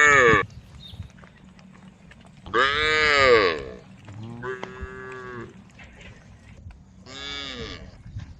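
Cows mooing, calling to the herd: four separate moos, the loudest about three seconds in. Most calls rise and fall in pitch, while one quieter call a little later holds a flatter, steady pitch.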